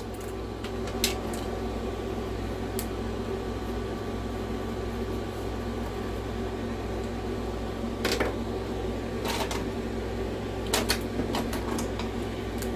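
Steady low electrical hum with a few light clicks and taps from small parts and tools handled on a workbench, the loudest coming about eight seconds in and again near the end.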